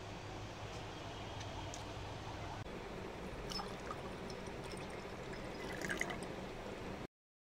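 Water being poured into a glass tumbler, splashing and bubbling, over a steady background hiss; the sound cuts off abruptly near the end.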